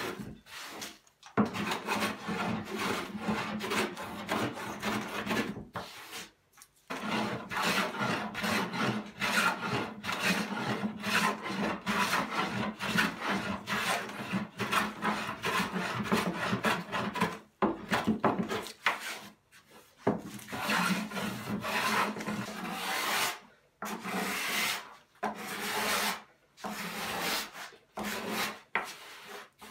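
Small hand plane shaving along a wooden board in quick, short rasping strokes, several a second, in runs with brief pauses between them. Near the end the strokes turn lighter and sparser as the board is rubbed by hand.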